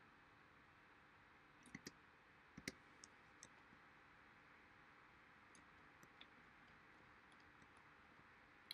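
Faint computer mouse clicks over near-silent room tone: two quick pairs about two seconds in, a couple of single clicks just after, and two more about six seconds in.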